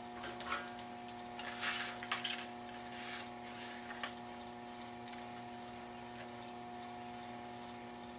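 Steady electrical hum with a few brief rustles and small clicks, the loudest cluster about two seconds in, as a soldering iron and solder wire are handled on the bench.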